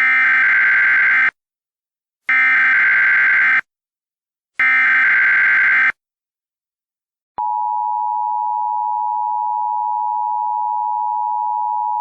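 Emergency Alert System header: three identical bursts of digital SAME data tones, each just over a second long, followed about seven seconds in by the steady two-tone EAS attention signal, which announces that an emergency voice message is to follow.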